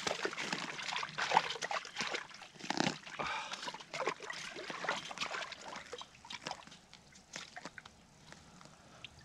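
A hooked rainbow trout splashing in the water of an ice-fishing hole as it is hauled out by hand: irregular splashing and sloshing, busiest in the first three seconds and tapering off toward the end.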